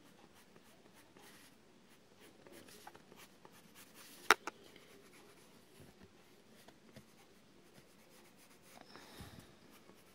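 Prismacolor coloured pencil scratching faintly on paper in short repeated shading strokes, layering dark brown into drawn hair. A single sharp click stands out a little over four seconds in.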